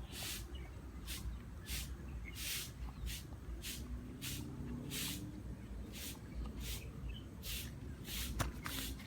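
Dog chewing its food, with short crunching sounds about two a second.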